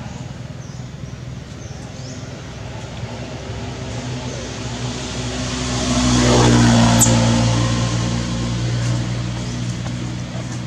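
A motor vehicle's engine passing by, growing louder to a peak about six seconds in and then fading.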